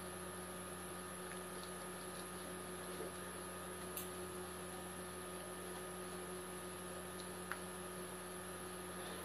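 Steady electrical mains hum with a thin high whine over it, and a faint tick about four seconds in and another near eight seconds.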